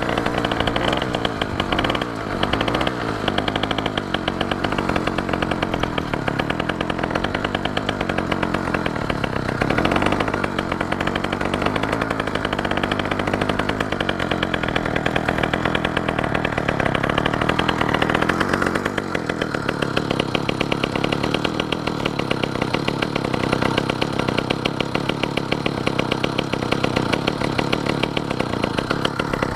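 A 2-stroke bicycle engine kit on a beach cruiser runs under way with a fast, buzzing chainsaw-like firing note. About two-thirds of the way through the sound loses some of its upper edge as the engine drops its revs. It is a new engine still in break-in on a rich oil-to-fuel mix, which the owner says still doesn't run very well.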